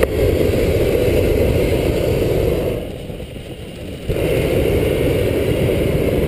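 Hot air balloon's propane burner firing overhead in two long blasts, a steady roar broken by a pause of a little over a second about three seconds in, heating the envelope before lift-off.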